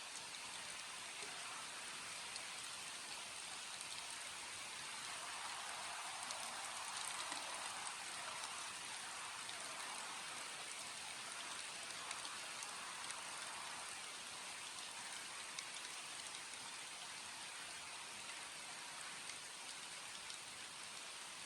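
Steady rain falling: an even hiss with scattered drop ticks, swelling a little louder and fuller about six to eight seconds in.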